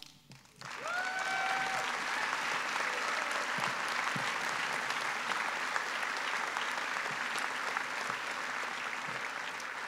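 Audience applauding, starting about half a second in after a brief lull and holding steady, with one short rising call from a single person near the start.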